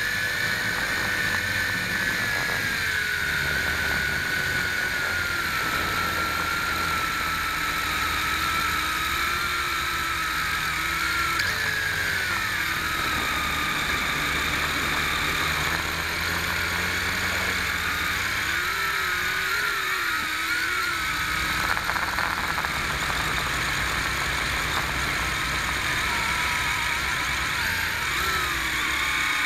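Electric motors and propellers of a WLtoys V262 quadcopter, heard from its own onboard camera: a steady whine whose pitch wavers up and down as the throttle changes.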